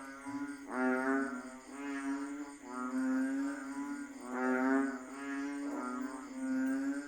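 Chorus of banded bullfrogs (Asian painted frogs, Kaloula pulchra) calling: low, droning bellows, each under a second long, coming about once a second from several overlapping frogs.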